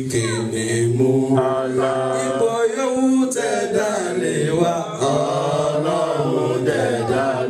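Male chanting of an Islamic devotional song into microphones, with long held notes that bend in pitch.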